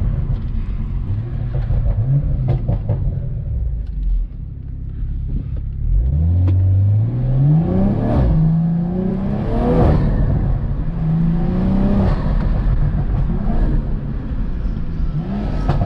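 BMW M340i's turbocharged B58 inline-six accelerating hard through the gears: after a low cruising rumble the engine note climbs, drops back at upshifts about two seconds apart and climbs again. At each shift there is a faint turbo flutter through the aftermarket intake, a little baby flutter.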